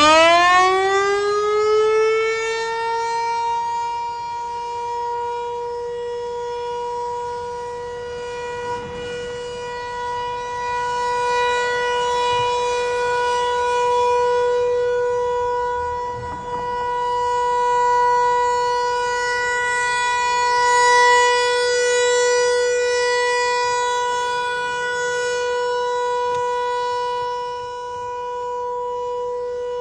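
Federal Signal 508-128 outdoor warning siren finishing its wind-up in the first second or two, its pitch rising and then settling into one steady wail. The loudness rises and falls slowly as it sounds.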